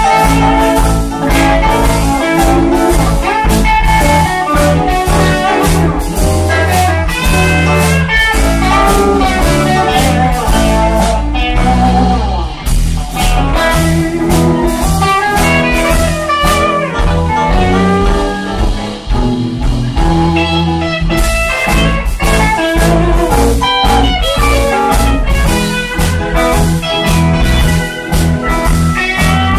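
Live blues band playing an instrumental: electric guitars carrying the melody over bass guitar and a steady drum-kit beat.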